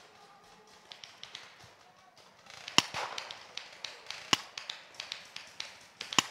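Paintball markers firing: scattered sharp pops, with three louder shots about a second and a half apart among smaller, more distant ones.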